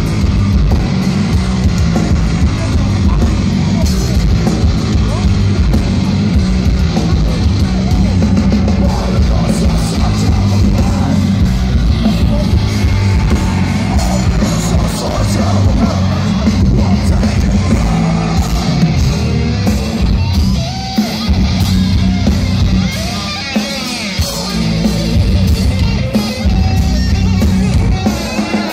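Heavy metal band playing live through a large outdoor festival PA, heard from within the crowd: loud guitars, drums and singing. The heavy low end drops away for a few seconds about two-thirds of the way in, then returns.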